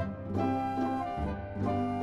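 Background music: brass instruments playing held chords that change about once a second.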